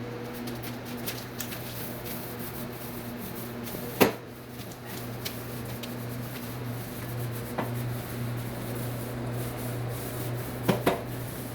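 Paint roller rubbing over a wall, over a steady low hum. A sharp knock sounds about four seconds in, and a few lighter clicks follow near the end.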